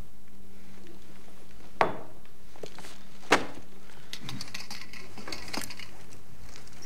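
Two sharp knocks about a second and a half apart, then a few faint clicks, over a steady low hum.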